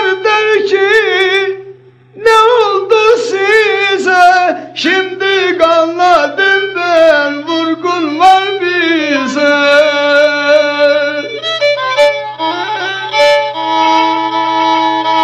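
Black Sea kemençe (Karadeniz kemençesi), a small three-stringed bowed lute, playing a lively ornamented folk melody. It breaks off briefly about two seconds in, then runs on in quick wavering phrases that settle into steadier held notes sounded on more than one string. A steady low hum lies underneath.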